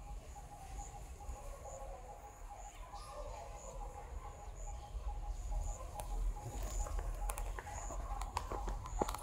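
Outdoor ambience: a faint call pulses about four times a second over a low rumble, with a few sharp clicks near the end.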